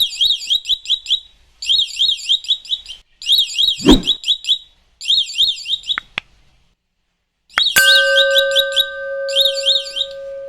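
Small electronic alarm siren of a DIY bag theft alarm, warbling rapidly up and down at about four sweeps a second, in bursts of a second or so that stop and start five times. A sharp thump comes about four seconds in, and from about three-quarters through a steady lower tone sounds under the warble.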